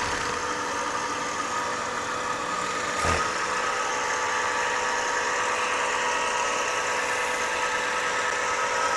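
Pre-1920s Brown & Sharpe metal lathe running steadily with a constant hum, with a single knock about three seconds in.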